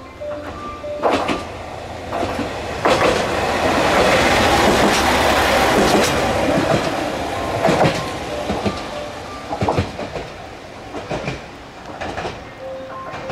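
Single-car HOT7000 diesel railcar passing through a station at speed. Its engine runs, and the wheels clack over rail joints. It is loudest as it goes by about four to seven seconds in, then fades as it pulls away, with single clacks spaced out near the end.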